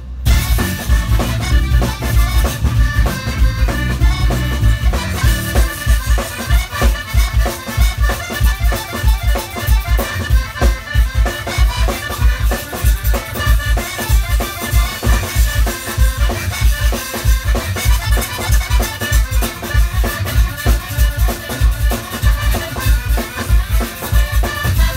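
Live zydeco band playing: accordion leading over drum kit, electric bass, guitar and rubboard, with a steady driving beat. The sound cuts out for an instant at the very start.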